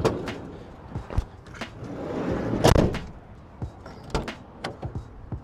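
A 2005 GMC Savana 3500 van's doors being worked by hand: a door opening with latch clicks, a heavy shut about halfway through, then more clicks as the rear door handle is pulled near the end.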